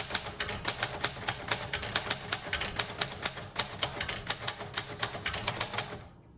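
1938 Royal Model O manual typewriter being typed on hard: a steady run of sharp key and typebar strikes, several a second. The strikes stop near the end as the carriage reaches the margin and locks.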